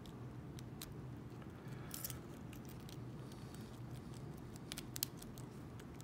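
Faint, scattered metallic clicks and scrapes of a wafer lock pick being rocked in a padlock's keyway, with a small cluster of clicks about two seconds in and several more near five seconds, over a low steady hum.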